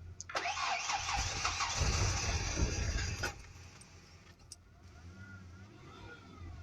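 Car engine being cranked by the starter for about three seconds, then cutting off without the engine running on. The battery had been drained by headlights left on overnight.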